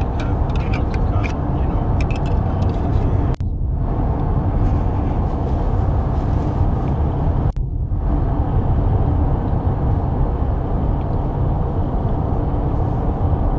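Steady engine and road rumble heard inside a pickup truck's cab while driving along a highway. There are a few faint ticks in the first few seconds, and the sound briefly cuts out twice.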